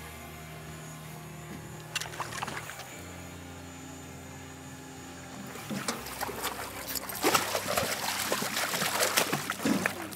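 Background music with held low notes. From about halfway in, loud irregular splashing as a hooked coho (silver) salmon thrashes at the surface beside the boat.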